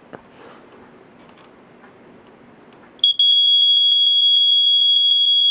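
First Alert SA120 ionization smoke alarm with its older-style horn, sounding on its test button: a loud, high-pitched steady tone that starts suddenly about three seconds in, with a rapid pulsing. Before it, only faint handling noise and a small click.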